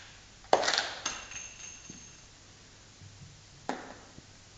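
Metallic clacks of a lever-action Winchester rifle's action being worked: a quick cluster of sharp clicks about half a second in, with a brief metallic ring that fades, then a single click near the end.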